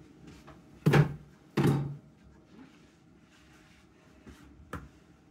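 Two solid thunks about a second in, under a second apart, then a light click near the end: tinned groceries being set down on a kitchen counter.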